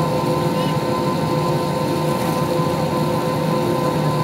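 Airbus A320's CFM56 jet engines running at taxi power, heard inside the passenger cabin: a steady hum with several held whining tones.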